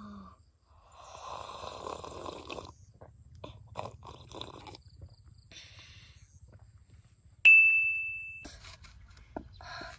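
A child slurping and gulping water from a glass mug, a noisy sip followed by a run of small swallowing clicks. About seven and a half seconds in, one loud, bright ding rings out and dies away over about a second.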